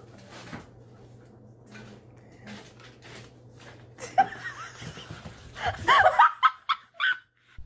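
A sudden sharp sound about four seconds in, then a person laughing in quick bursts.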